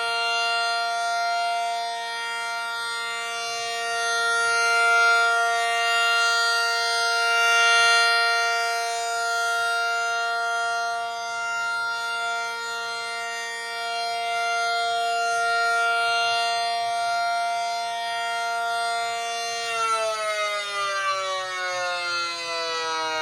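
Miniature ACA P-50 rotating siren sounding the steady alert signal: one held pitch whose loudness swells and fades as the rotator turns. About 20 s in the power is cut and the pitch falls steadily as the rotor winds down.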